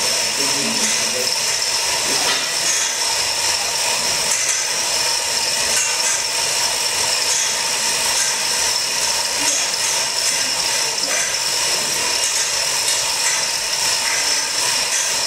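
Hand-pulled chain hoists lifting a load, their chains rattling and ratchets clicking steadily without a break.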